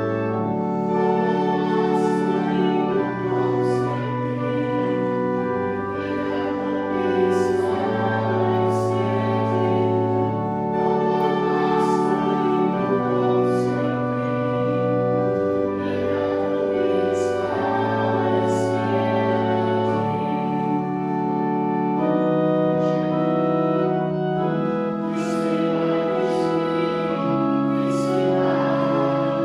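Children singing a song to organ accompaniment; the organ holds chords, its bass stepping to a new note every one to two seconds.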